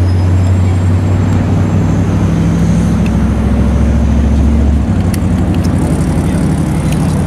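Motor vehicle engine running with a steady low hum; one of its low tones drops out about five seconds in.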